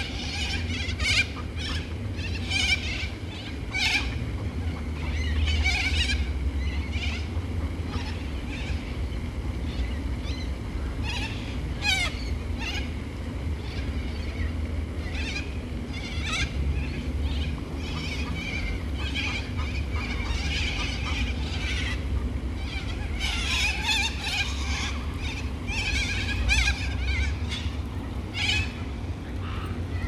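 Flock of birds calling, with repeated harsh screeching calls every second or two, thickest about two-thirds of the way through. A steady low rumble runs underneath.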